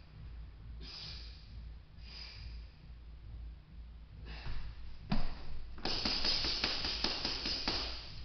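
A boxer's sharp exhalations on each press-up, then a thud about five seconds in and a rapid run of gloved punches on a heavy bag, with hard breathing, over the last two seconds.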